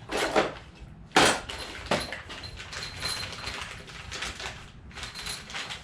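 Small metal parts and bolts clinking and clattering as they are handled and rummaged through, with a sharp knock about a second in and lighter knocks around it.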